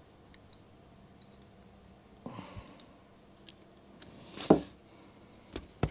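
Light metal clicks of a nut being worked by hand on a bolt of a Ransomes Ajax reel mower's roller bracket. A short rustle comes about two seconds in, and a louder thump about four and a half seconds in.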